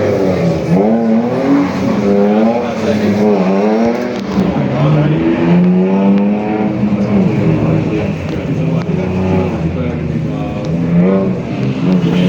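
BMW E46 engine driven hard, its pitch climbing under acceleration and dropping again and again through gear changes and lifts off the throttle.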